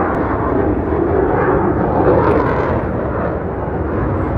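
Military jet flying past low overhead: a loud engine rush that swells to a peak about two seconds in and then eases off.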